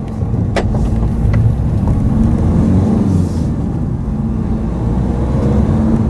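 Car driving along a country lane, heard from inside the cabin: a steady low rumble of engine and tyres. A couple of sharp clicks come about half a second and a second and a half in.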